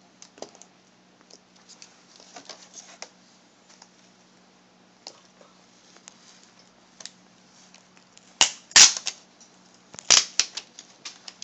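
Adhesive tape crackling and clicking as it is peeled from a laptop LCD panel's video cable connector, in small scattered bursts, with two louder crackling bursts near the end.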